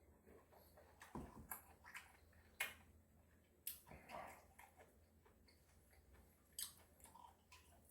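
Faint close-up eating sounds: scattered small mouth clicks, wet squishy chewing and a few light ticks, with a slightly longer soft chewing sound about four seconds in.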